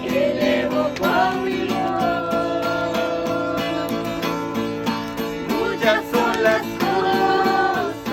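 Acoustic guitar strummed in a steady rhythm, with a voice singing long held notes of a hymn.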